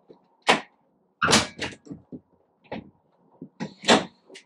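Toyota MR2 Roadster's front bonnet being unlatched and lifted open: several sharp clunks and clicks of the catch and panel, the loudest about a second in and near the end.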